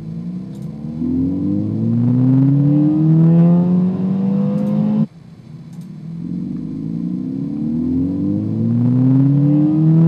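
Playback of a recorded Ford 1.6-litre EcoBoost turbocharged four-cylinder accelerating through the rev range. The engine note rises steadily in pitch and loudness. About five seconds in, the playback cuts off suddenly and restarts from low revs, rising again.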